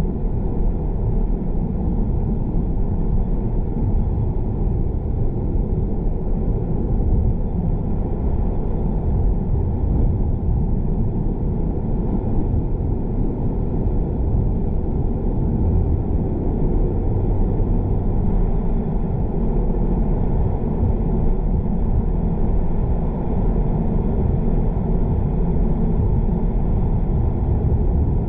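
A car driving: steady low rumble of engine and road noise, unchanging throughout.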